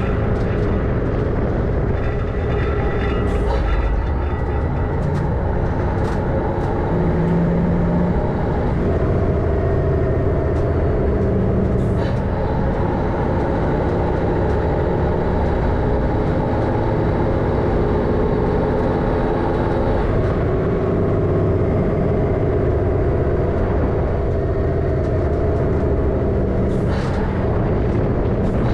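MAN LE280B 4x4 truck's diesel engine running steadily under way, its note shifting a couple of times, with a few sharp knocks or rattles.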